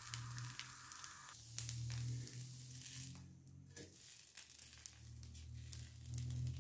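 Thin neer dosa sizzling faintly on a hot nonstick tawa, with soft crinkling and a few light clicks as the lacy dosa is folded and pressed by hand. A steady low hum runs underneath.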